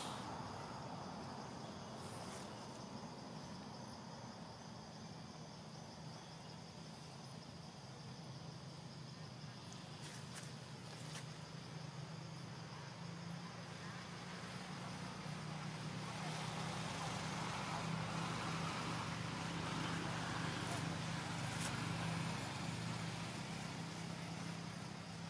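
A motor engine running steadily with a low hum. It grows louder from about halfway through and eases off slightly near the end, with a few faint ticks along the way.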